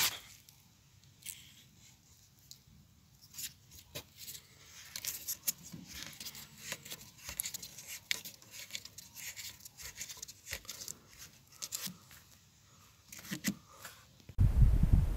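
Scratchy clicks and creaks of a homemade air-rifle dart's metal shaft being twisted and worked in the weathered wooden fence board it is stuck in. Near the end a loud low rushing noise cuts in suddenly.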